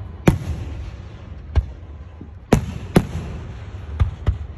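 Aerial fireworks shells bursting: six sharp bangs at uneven intervals. The biggest comes just after the start, and two more land close together around the middle.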